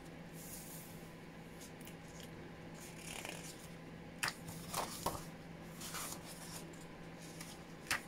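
Paper pages of a book being handled and turned: soft rustles and swishes, with a couple of brief sharp flicks of paper, one about four seconds in and one near the end.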